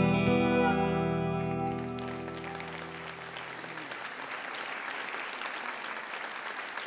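The band's final held chord ringing out and fading, with audience applause starting about two seconds in and carrying on after the music has died away.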